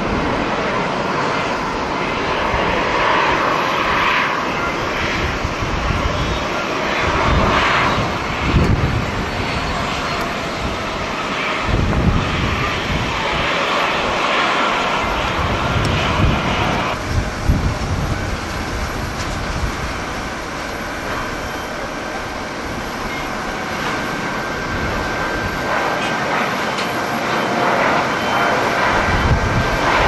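Airbus A330 jet airliner's engines at takeoff thrust as it climbs away: a continuous noisy rumble, with gusts of strong wind buffeting the microphone.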